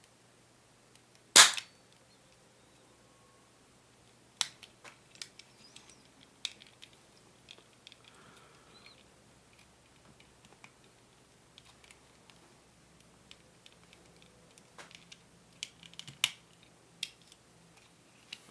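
Parts of an Umarex Walther PPK/S spring airsoft pistol being handled during disassembly: one loud, sharp snap about a second and a half in, then scattered light clicks and taps of small parts.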